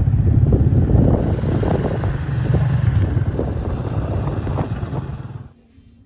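Small motorcycle engine running close by, a fast even pulsing beat. It cuts off abruptly about five and a half seconds in.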